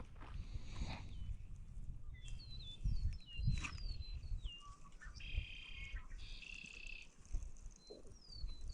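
Birds calling: several short, high, falling chirps and two buzzy trills of about a second each in the second half, over a low rumble, with one sharp click about three and a half seconds in.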